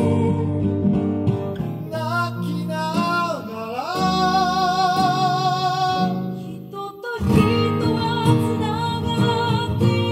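Live song with a singer over acoustic guitar chords, with held notes sung with vibrato. The music breaks off suddenly for a moment about seven seconds in, then resumes.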